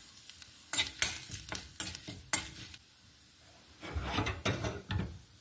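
Spoon stirring and scraping in a small pan of hot oil while a tempering of mustard seeds, urad dal, red chillies and fresh curry leaves sizzles. A quick run of sharp scrapes and clicks fills the first half, then after a short lull come a few duller knocks.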